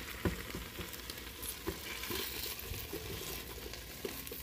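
Hot fried tomatillos, red jalapeños and onion still sizzling in their oil as they are scraped off the pan with a silicone spatula and tipped into a Nutribullet blender jar, with a few knocks of pieces dropping into the jar and the pan against its rim.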